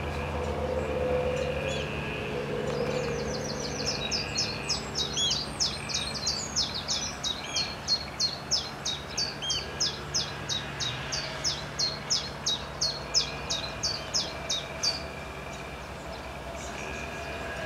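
Common chiffchaff singing its chiff-chaff song: a long run of high, evenly spaced notes, about three a second, starting a few seconds in and stopping about three seconds before the end. Other birds call faintly behind it over a low steady rumble.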